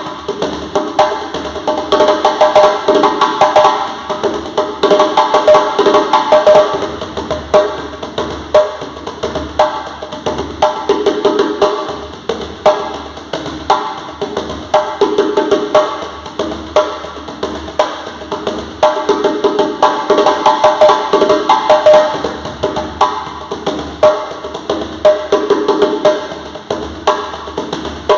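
A drum being played continuously in a fast, steady rhythm of many strikes a second, each stroke ringing with a clear pitch.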